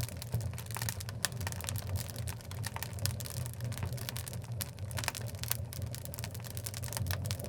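Oak logs burning in a wood fireplace: a steady low rumble and hiss of the flames with frequent sharp crackles and pops.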